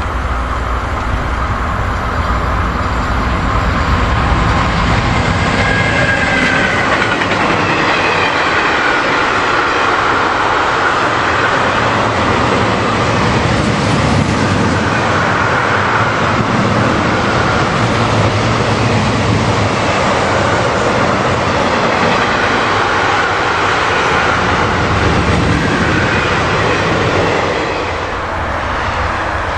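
Long freight train of double-deck car-carrier wagons behind an electric locomotive rolling past at speed: a steady rumble of wheels on rail with clatter over the rail joints and a faint high squeal about six seconds in. The noise drops slightly near the end.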